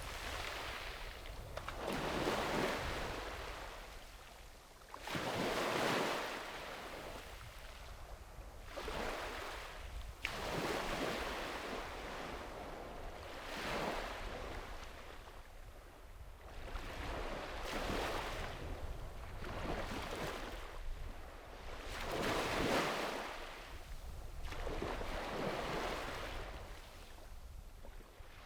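Small sea waves breaking and washing up a beach, a fresh surge of hiss swelling and fading every two to four seconds, over a low steady rumble.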